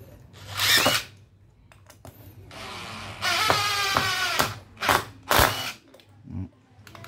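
DeWalt brushless cordless impact driver driving a screw into wood on its speed setting 2, with its impact mechanism hammering: a short burst about half a second in, then a longer run with a whine from about two and a half seconds, and two short bursts near the end as the screw seats.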